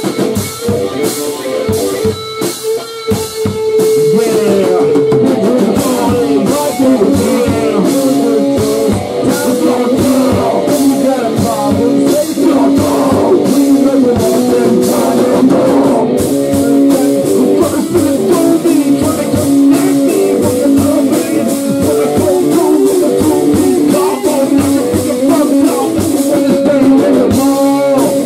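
Rock band playing an instrumental passage: electric guitar over a drum kit with a steady cymbal beat, getting louder about four seconds in.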